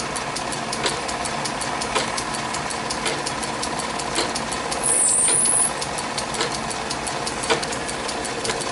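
Small metal lathe running, its spindle turning a workpiece while a twist drill in the tailstock drill chuck is fed into the end, with a steady fast ticking from the machine. A short high squeal comes from the cut about five seconds in.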